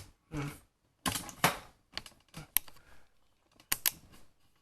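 Camera tripod being adjusted by hand: a series of sharp plastic clicks and short rattles, irregularly spaced, with quiet gaps between.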